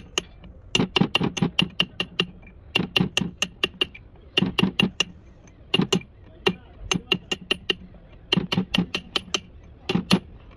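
Hammer tapping on a metal part in quick bursts of three to six sharp blows, about seven bursts separated by short pauses.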